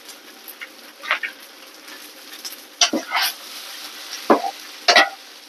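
Food frying in a pan and being stirred, with a steady sizzle and a utensil clacking and scraping against the pan several times, the sharpest knocks in the second half.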